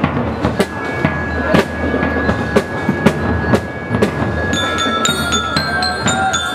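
Parade drum-and-lyre band: drums beating a steady march at about two beats a second, joined about four and a half seconds in by bell lyres ringing out a melody.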